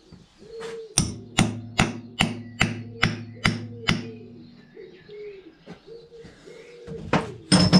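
Hammer striking metal: eight blows in a steady run, about two and a half a second, each leaving a short low ring. Two more blows come near the end.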